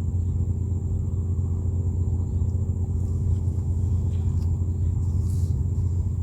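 Small boat's engine running steadily, a low, even rumble.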